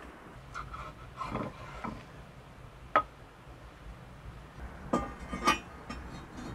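A metal pan being set down and shifted on the stones of a fire pit. Scraping in the first two seconds is followed by three sharp clanks, each with a brief metallic ring: one about three seconds in and two close together near the end.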